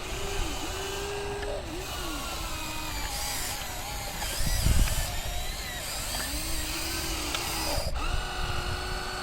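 Electric whine of a hydraulic RC excavator's motor and pump, a steady tone that dips and rises in pitch as the load changes, fading out for a few seconds midway and coming back near the end. A low thump sounds about halfway through.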